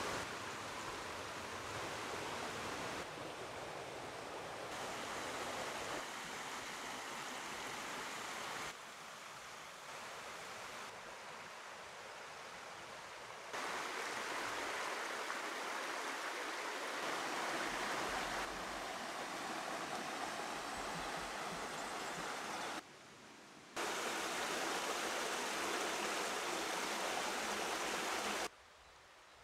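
Rushing water of a river running over rocks, a steady hiss that changes level abruptly several times as the shots change.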